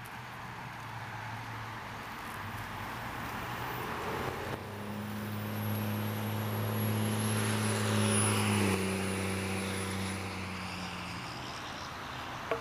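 A motor vehicle passing by on the road: its engine hum and tyre noise build to a peak about eight or nine seconds in, then drop in pitch as it goes past and fade away.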